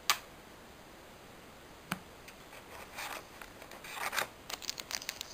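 Two sharp taps, then rustling and scraping that build near the end as a foil booster pack is drawn out of a cardboard display box and starts to crinkle.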